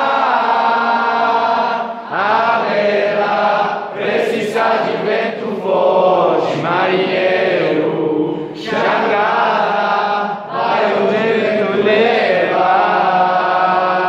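A group of voices singing a capoeira song together in sung phrases, with brief breaks between lines.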